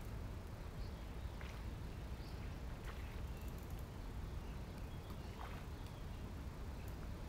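Quiet lakeside ambience: a steady low rumble with a few faint, short bird chirps scattered through it.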